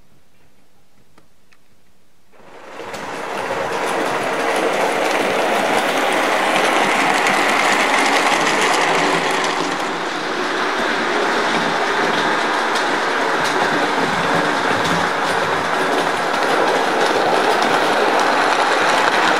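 Model train running along the track, a steady rolling clatter of wheels on rail that comes in abruptly about two seconds in, after a faint ticking.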